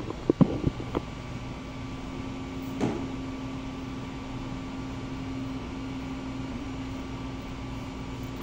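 A few knocks and clicks in the first second, then a steady hum with a low tone from about three seconds in: the 3D printer's cooling fans running while it sits preheated.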